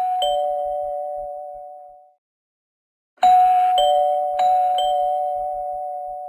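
Two-tone doorbell chime ringing ding-dong: a higher note then a lower one, ringing out slowly. About three seconds in it rings again, ding-dong twice in quick succession.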